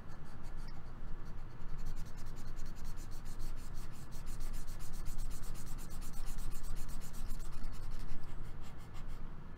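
Stylus rubbing on a drawing tablet in rapid back-and-forth scrubbing strokes while shading with a digital airbrush; the scratching thickens about two seconds in and eases near the end.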